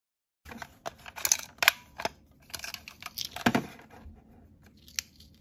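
Hard plastic clicks and taps as fingers with long nails handle a small plastic capsule toy and a tiny plastic miniature: about a dozen irregular sharp clicks, the loudest a little under two seconds in and again around three and a half seconds.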